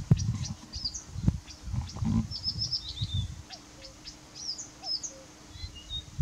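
Marsh warbler singing: a fast, varied run of short chirps, trills and whistles, high in pitch, with brief pauses. Underneath, an irregular low rumble comes and goes.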